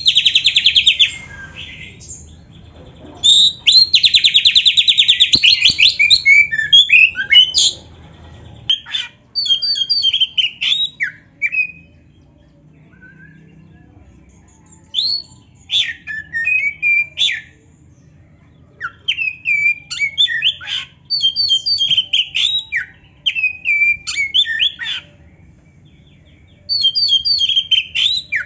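Oriental magpie-robin (black-breasted kacer) singing loudly. Two long, harsh, fast rattles come in the first six seconds. Then come bouts of short sliding whistles and sharp notes, broken by pauses of a second or two.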